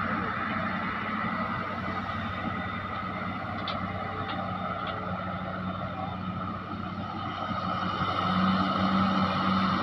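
Heavy diesel engine running steadily with a low hum, growing louder about eight seconds in.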